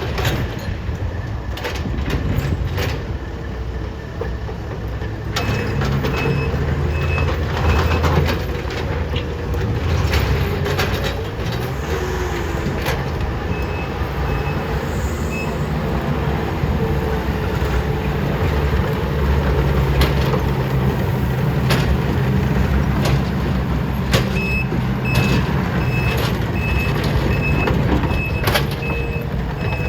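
Diesel engines of a Takeuchi TL12 skid steer and a CAT 308E2 excavator working under load, with a reversing alarm beeping about twice a second in three spells, the longest near the end. Scattered knocks and clanks of the machines working gravel sound over the engines.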